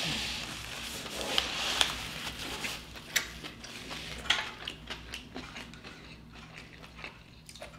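Eating noises: chewing with irregular small clicks and taps, growing sparser toward the end.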